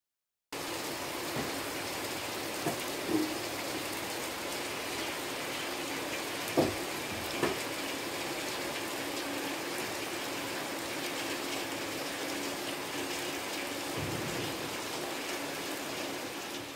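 Steady rain falling, starting about half a second in, with a few short louder sounds standing out in the first eight seconds.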